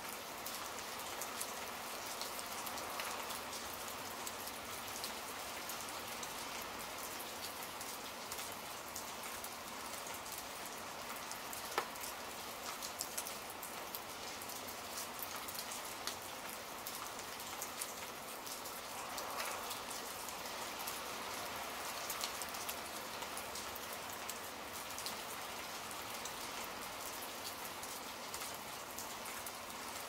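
Steady rain pattering, a dense even hiss of fine drops, with one sharper click about twelve seconds in.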